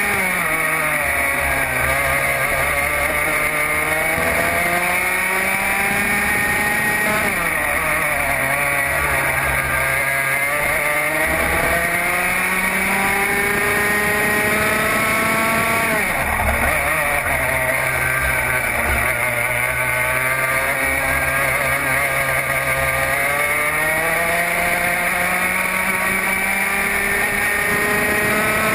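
Racing go-kart engine heard from on board at full race pace. Its note climbs steadily as the kart accelerates along the straights and drops sharply when the driver lifts for corners, a few times over.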